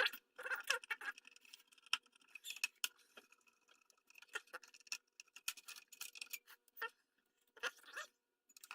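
Faint, irregular clicking and tapping of hands and a screwdriver working on the PlayStation 4's small plastic parts and connectors.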